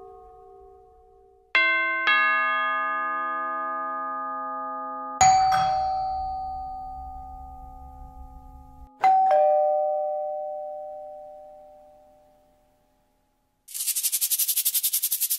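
Doorbell chimes: a two-note ding-dong about one and a half seconds in, then single chime strikes about five and nine seconds in, each ringing out, the last fading away. Near the end a shaker starts rattling rapidly.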